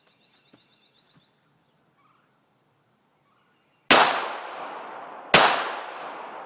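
Two .45 ACP pistol shots from a Rock Island Armory 1911, about a second and a half apart, each followed by a long echo trailing off.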